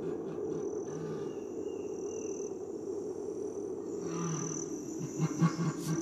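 Jaguar calling with deep, grunting roars that fall into a regular series of strokes from about five seconds in, against a high insect note that sounds on and off.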